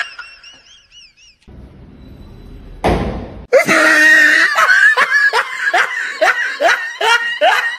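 A person laughing hard, a rapid string of repeated bursts that begins a little before halfway, just after a short loud noisy burst. Faint high wavering tones come before it.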